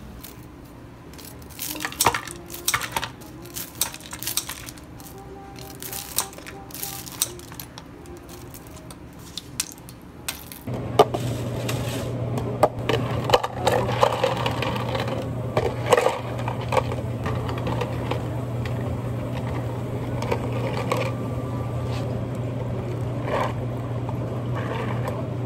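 Ice cubes clattering and clinking into plastic cups, with sharp taps as the cups are handled and set down, over a steady low hum. Before that, scattered sharp clicks and taps of kitchen work.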